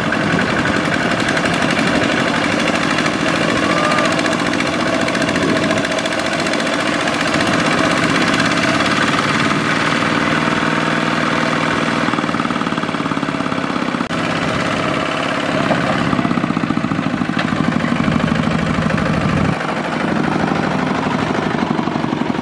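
The single-cylinder diesel engine of a two-wheel walking tractor running steadily with a rapid chugging beat, under load as it hauls a trailer of rice sacks through deep mud.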